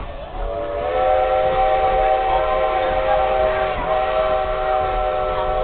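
Steam locomotive's chime whistle blowing one long blast of several notes sounding together, starting about half a second in, as the train approaches a grade crossing.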